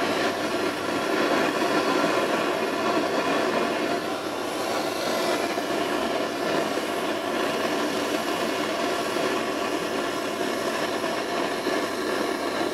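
Handheld gas blowtorch burning with a steady hiss as its flame heats a stainless steel seam for soft soldering.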